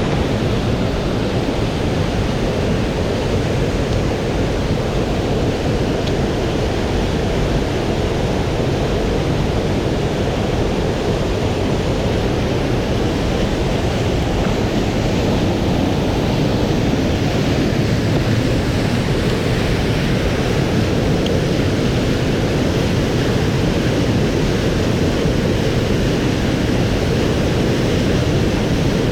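Swollen mountain stream rushing steadily, a continuous even wash of water noise.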